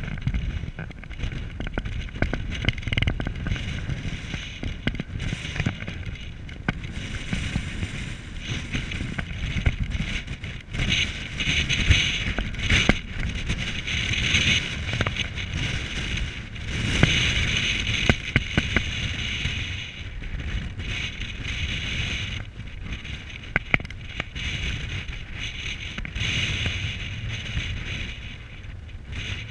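Ferry under way, a steady low rumble from the ship with wind buffeting and crackling on the camera's microphone.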